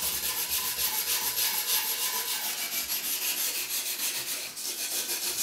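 Hand wire brush scrubbing surface rust off the steel blade of a Japanese nata, in fast back-and-forth strokes, four or five a second, with a short break about four and a half seconds in. The rust is light surface rust that comes off easily.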